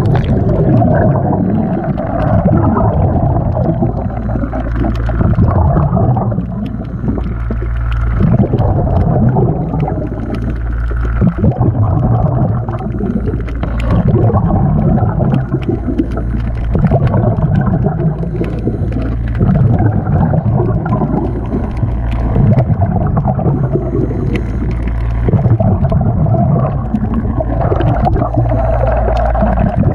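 Underwater sound picked up by a camera held below the waterline: a constant low rumble with gurgling and bubbling that swells and fades every few seconds.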